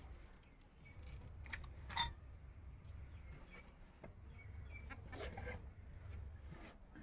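Faint handling of a knife: a sharp clink about two seconds in, then the blade scraping briefly against the ground as it is sharpened, about five seconds in.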